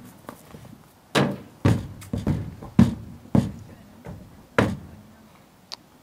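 Horse's hooves thudding on a horse trailer's ramp and floor: a series of about six heavy, unevenly spaced hollow knocks, each ringing briefly.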